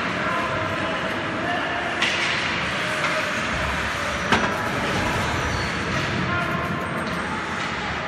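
Ice hockey play on an indoor rink: skates scraping and gliding over the ice under a steady noise, with a sharp crack of stick on puck about two seconds in and a louder one a little past four seconds.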